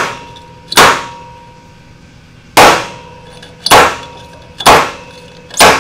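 A steel tube and FJ Cruiser half-shaft assembly slammed down onto a hard surface five times, each strike a loud metal clang followed by a brief ringing tone. The blows drive the shaft's kinetic energy against the Birfield CV joint's inner star to break the retaining snap ring loose so the axle shaft drops free without cutting.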